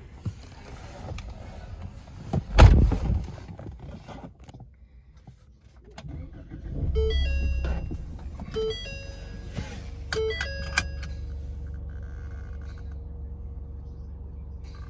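A loud thud about two and a half seconds in. About six and a half seconds in, the 2018 Ford Mustang EcoBoost's 2.3-litre turbocharged inline-four starts, flares briefly and settles to a steady idle, while a dashboard chime sounds three times.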